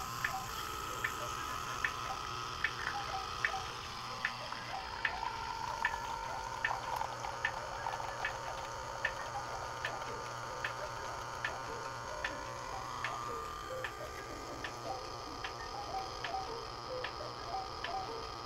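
Soft background music with a steady ticking beat, about two ticks a second, over held notes that change pitch partway through.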